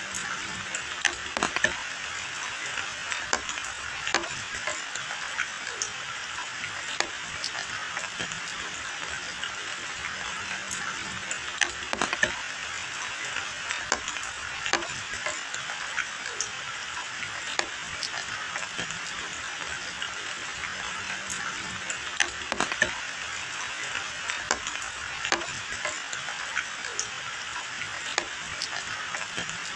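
Steady rain falling on leafy hedges and a wet, puddled road, a constant even hiss. Sharp taps of single large drops land close by at irregular intervals, often a second or two apart.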